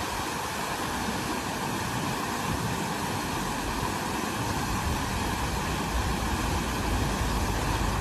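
Plaza fountain's water jets splashing into a stone basin, a steady rush of water, with a low rumble underneath that grows louder in the last couple of seconds.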